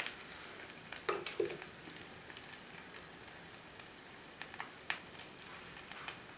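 A glowing-hot metal ball sizzling against the material it is burning: a steady hiss broken by scattered crackling pops, with two sharper ones a little over a second in.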